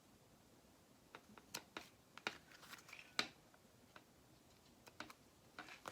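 Scissors cutting the wallet material: a few faint, scattered snips and clicks, the sharpest about three seconds in.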